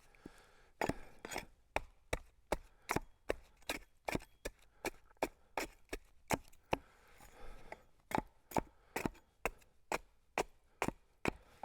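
Axe striking cedar in quick, even blows, about two to three a second, to split off shakes, with a short pause about two thirds of the way through.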